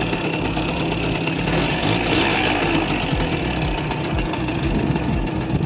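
Single-cylinder two-stroke Simson moped engine idling steadily.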